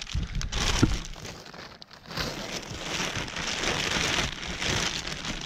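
Plastic bag holding crawfish, rustling and crinkling as it is opened and shaken. There is a brief lull about a second and a half in, then steady crinkling.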